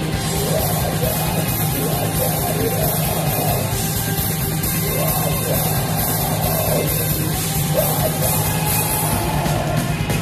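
Post-black metal band playing live and loud: a dense wall of distorted guitars and drums with a steady low end, and a harsh, yelled vocal over it.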